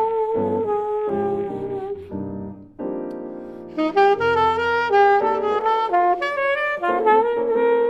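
Background music: a saxophone playing a melody over piano, with a brief dip about three seconds in before the notes resume.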